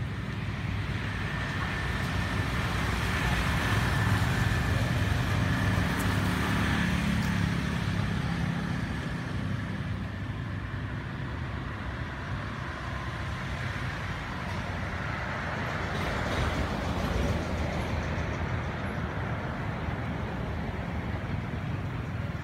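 Motor vehicle traffic passing: a continuous low engine rumble that swells about four seconds in and again around sixteen seconds, as vehicles go by.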